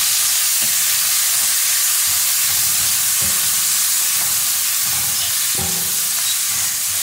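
Coconut pieces and spices frying in hot oil in a steel wok, a steady loud sizzle. A silicone spatula stirring through them makes a few soft knocks against the pan.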